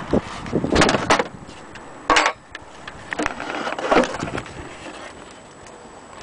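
Handling noise: irregular knocks, clicks and rustles, loudest in short bursts about a second in and just after two seconds, over a steady background hiss.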